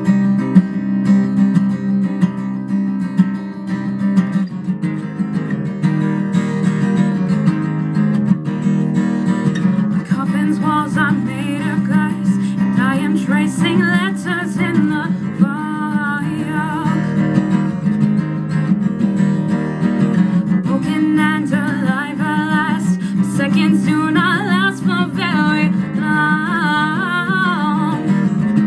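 Acoustic guitar strummed steadily as a song's accompaniment, with a woman's singing voice joining about ten seconds in.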